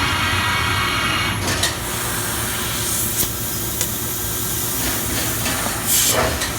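Mazak Super Turbo X48 CO2 laser cutting machine running: a steady hum with a hiss that eases about a second and a half in, and a few sharp clicks and knocks.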